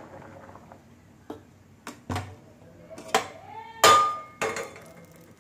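Steel cooking vessels clanking against a gas stove's metal pan supports as a pot is lifted off and a steel kadai is set on the burner: about six separate knocks, the loudest about four seconds in ringing briefly.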